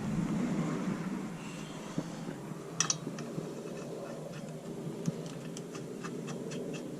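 Seat-mounting bolts and hand tools being handled: light metallic clicks and taps, one sharper click about three seconds in, then a run of small clicks at a fairly even pace.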